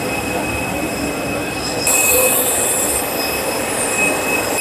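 Jet aircraft turbine whine on the apron: a steady high-pitched whine made of several constant tones over a rushing noise, briefly louder about two seconds in.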